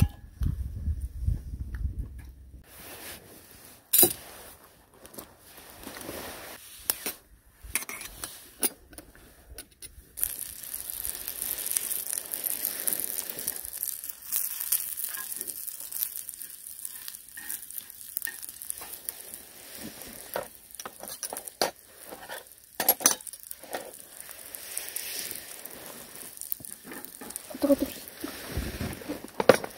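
Food sizzling in a hot pan, a steady hiss that starts about a third of the way in, with scattered sharp clinks and knocks of utensils against cookware.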